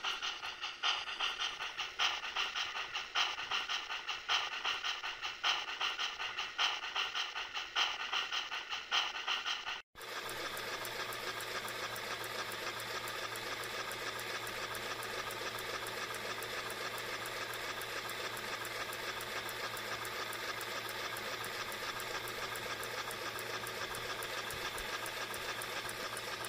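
HO-scale MTH Union Pacific 4-12-2 steam locomotive model running on a roller stand, its onboard sound system giving rhythmic steam chuffs at an even beat. After a sudden break about ten seconds in, the chuffing becomes a steadier, faster hiss.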